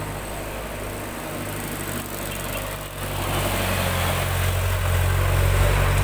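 Engines of a passenger jeepney and a light truck running close by: a low steady drone that grows louder about three seconds in as they drive past.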